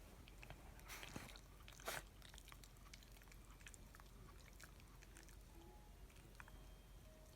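A Shiba Inu sneezing: a breathy puff about a second in, then one short, sharp sneeze just before two seconds in. Otherwise only faint small clicks and mouth noises.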